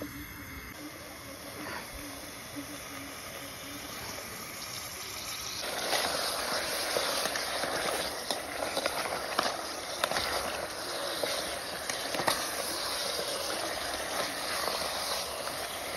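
Mutton pieces sizzling in an aluminium pot over a gas flame, with a steel ladle clinking against the pot as the meat is stirred. The sizzling gets louder about six seconds in.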